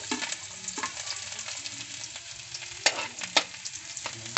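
Chopped garlic sizzling as it hits hot cooking oil in a wok, stirred with a metal spoon that clicks sharply against the pan a few times from about three seconds in.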